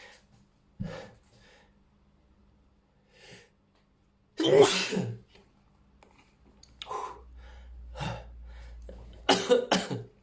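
A person sneezing over and over, induced by Chhinkni sneezing powder: one loud sneeze about halfway through and two more in quick succession near the end, with quieter breaths and short sounds between.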